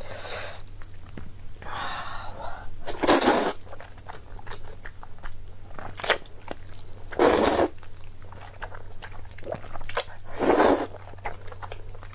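Close-miked eating sounds: mouthfuls of Chinese-yam vermicelli being chewed, with four louder noisy bursts a few seconds apart and soft wet mouth clicks between them.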